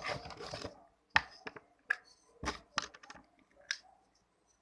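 Glitter slime being squished and pulled in the hands: a short crackly squish at the start, then several separate sharp sticky pops and clicks.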